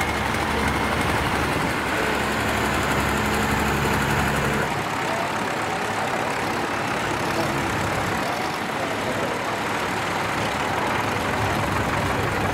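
An engine idling steadily; its low running drops away about five seconds in.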